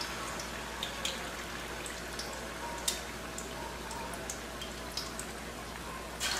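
Cream-coated hake fillets deep-frying in hot oil in an aluminium pan, sizzling steadily with scattered crackles and pops. There is a sharp pop about three seconds in, and a louder rush of sizzling near the end as another piece is lowered into the oil with tongs.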